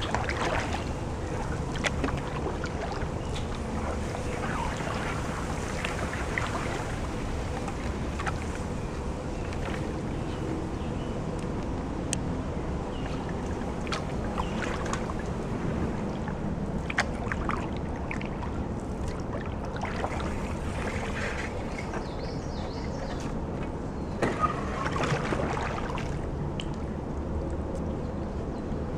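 Canoe being paddled through flood water: paddle strokes swishing and dripping, with scattered sharp knocks of the paddle against the canoe and a steady low wind rumble on the microphone.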